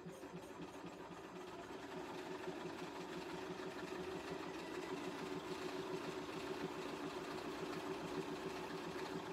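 BERNINA sewing machine running continuously, stitching a straight stitch through a quilt under a roller presser foot, with a fast, even stitch rhythm that grows a little louder over the first two seconds.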